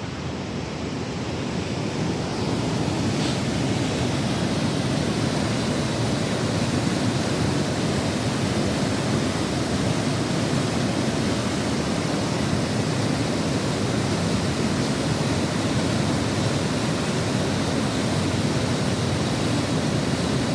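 Steady rushing of a waterfall, a constant roar of falling water that grows a little louder over the first couple of seconds.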